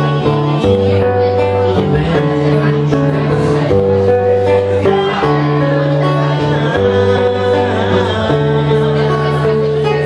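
A man singing to his own acoustic guitar accompaniment, with strummed chords and a steady bass line that changes about once a second.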